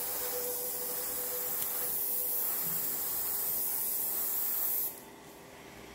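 Airbrush hissing steadily as it sprays thinned lacquer paint, cutting off sharply about five seconds in when the spraying stops.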